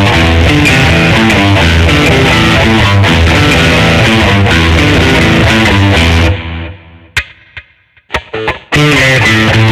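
Schecter Omen 6 electric guitar played through a distorted effects patch, a chugging riff. About six seconds in the playing stops and rings down to near quiet with a few sharp clicks, and the riff starts again near the end.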